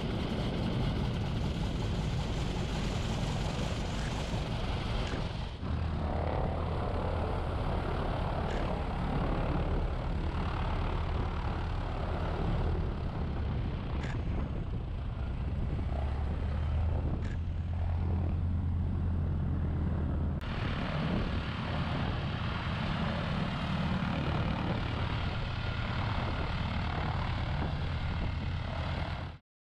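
North American Harvard trainers' Pratt & Whitney R-1340 Wasp nine-cylinder radial engines running, a steady deep drone with propeller noise. The sound changes abruptly twice and cuts off suddenly just before the end.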